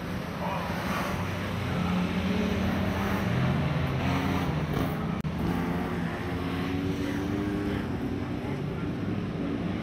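Several dirt-track stock car engines running hard in a pack, their pitches shifting up and down as the cars pass and accelerate.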